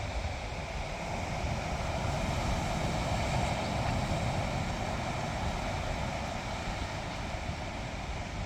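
Surf washing on a beach in a steady rush that swells a little in the middle, with wind rumbling on the microphone.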